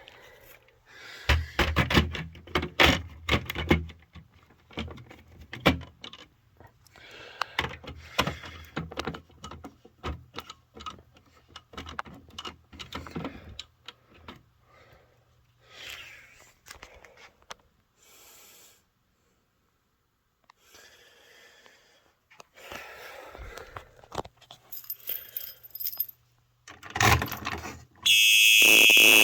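A ring of keys jangling and clicking against fire alarm pull stations as they are key-activated, with scattered handling knocks. Near the end a Simplex 4903 horn starts sounding, a loud steady tone.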